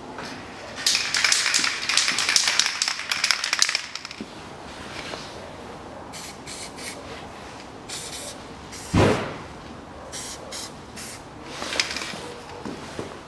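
Aerosol spray can spraying in a crackly hiss for about three seconds, followed by scattered short rustles and a single sharp knock about nine seconds in.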